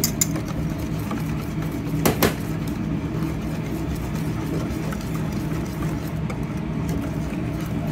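Wire whisk stirring a batter in a stainless-steel bowl, with a pair of sharp metal clinks about two seconds in, over a steady low mechanical hum.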